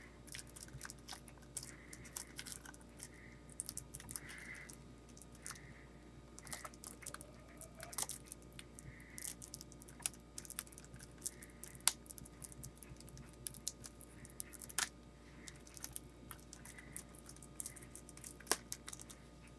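Fingers picking and peeling at the plastic shrink wrap on a Blu-ray case: scattered small clicks and crinkles of the film and the hard plastic case.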